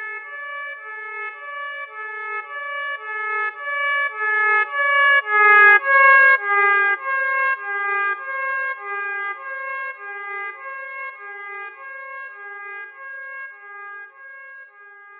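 Emergency alarm signal: a horn-like tone pulsing about twice a second over a held steady tone. It swells to its loudest about six seconds in, where the pitch dips slightly, then fades away.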